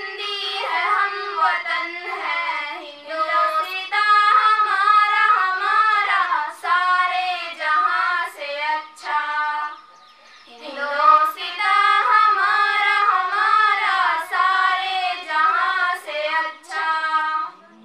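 Two young girls singing together into a microphone, with a short break in the singing a little past halfway.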